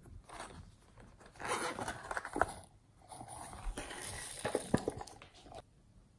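Sequin confetti being shaken out of a small plastic bottle onto slime: two stretches of rustling and scraping, with a few sharp clicks of hard plastic.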